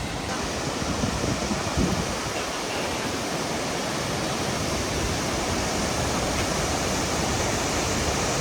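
Golden Waterfall's water pouring over the rocks: a steady, even rushing.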